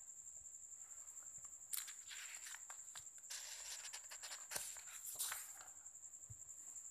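Paper rustling as a handwritten sheet is handled and taken off a clipboard, with a few sharp clicks among the rustle in the middle seconds. A faint, steady high-pitched whine runs underneath throughout.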